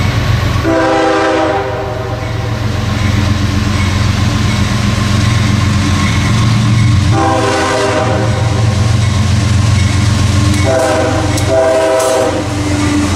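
Three CSX diesel locomotives leading a freight train close by, their engines running with a steady low rumble while the lead unit's multi-chime air horn sounds four blasts: one about a second in, a longer one near the middle, and two short ones close together near the end.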